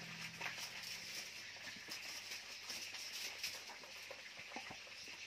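Faint small clicks and crackles of fingers picking meat from a cooked lobster's shell, over a steady hiss.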